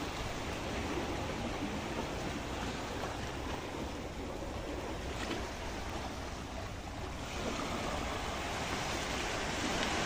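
Sea waves washing and splashing against rocks, a steady surf noise that eases slightly for a moment past the middle.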